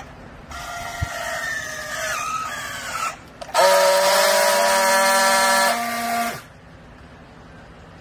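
Battery-powered handheld strapping tool tensioning a plastic strap around a bale, its motor whining and slowing as the strap tightens, then after a brief pause a louder steady buzz for about two seconds as it friction-welds the strap, cutting off suddenly.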